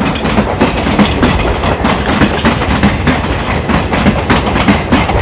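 Passenger train coaches rolling past, wheels clacking over the rail joints in a rapid run of clicks over a steady rumble.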